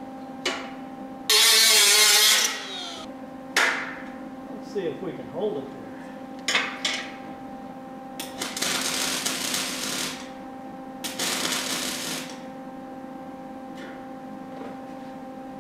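MIG welder tack-welding a sheet-metal patch panel: two welds, about two seconds and one second long, in the second half, over a steady electrical hum. An earlier, louder burst comes about a second in, followed by scattered clicks and taps.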